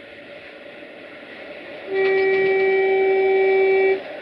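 Horn of a GFR class 060-EA (LE5100 kW) electric locomotive sounding one steady blast for about two seconds, starting about two seconds in and cutting off sharply, over the running noise of the approaching tank-wagon freight train.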